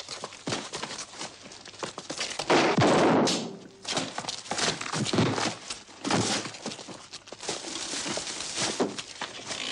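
Fight-scene sound effects: a dense, irregular run of thuds, knocks and crashes. The loudest is a longer crash about two and a half seconds in.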